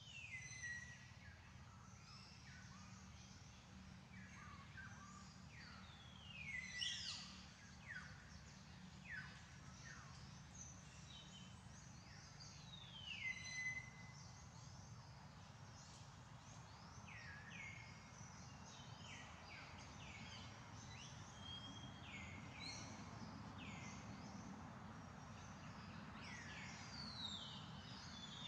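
Birds calling: a scatter of short, high whistles that each slide steeply down in pitch, some ending on a brief held note, over a faint steady low hum.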